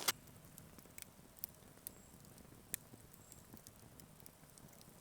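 A few scattered sharp clicks and snaps over a faint background, the loudest just at the start.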